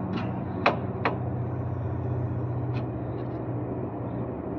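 A passing train's steady low rumble, with two sharp clicks about a second in.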